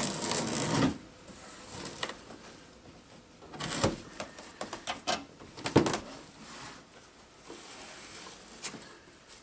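Knife slicing through packing tape on a cardboard shipping box, a loud scraping hiss in the first second. It is followed by scattered rustling and two sharper knocks, about four and six seconds in, as the cardboard box is handled and opened.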